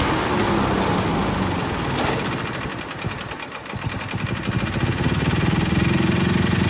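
Kohler Magnum 18 twin-cylinder engine stumbling and slowing with uneven firing, nearly dying about three and a half seconds in, then picking back up to a steadier run. The stumble fits fuel starvation from a bad fuel pump.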